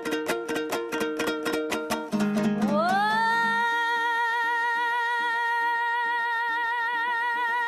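Kazakh folk song: a plucked string instrument strummed fast and evenly, then about two seconds in a woman's voice slides up into one long high note held with vibrato, and the strumming drops away beneath it.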